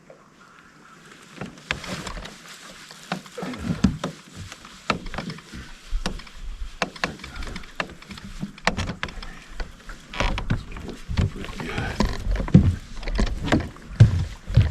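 Irregular splashing and knocking of water against the boat while a hooked spotted bass is fought to the boat. It starts faint and builds within the first two seconds into a busy run of short knocks and splashes.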